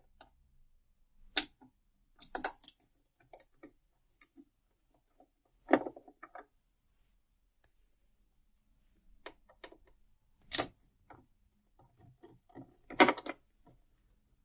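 Scattered small clicks and clacks of a metal oval service key and screws against the plastic housing of a Jura ENA 8 coffee machine as its oval-headed housing screws are undone by hand. About five sharper clacks stand out among lighter ticks.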